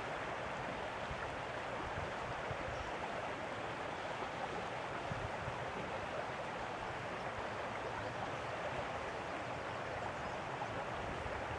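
Steady rush of moving water, even throughout with no distinct surges or breaks.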